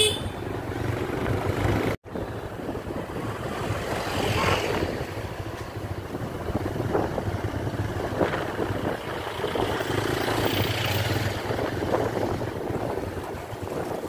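Steady engine and road noise from a vehicle driving along a road, broken by a brief cut-out of all sound about two seconds in.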